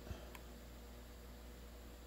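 Quiet room tone: a faint steady hum and hiss, with one faint click about a third of a second in.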